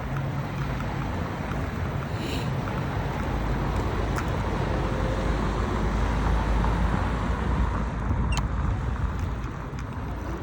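Steady low rumble of wind buffeting the microphone and tyres rolling while cycling, with a few faint clicks.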